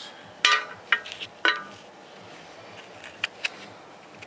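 Metal parts clinking: three sharp clinks about half a second apart, each ringing briefly, then two faint ticks near the end. It is a broken needle-bearing shell from the front hub being handled and set down on the metal housing.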